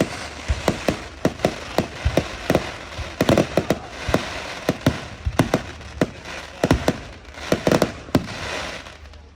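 Fireworks going off: a rapid run of sharp bangs, about three a second, with thicker crackling about three seconds in and again near eight seconds.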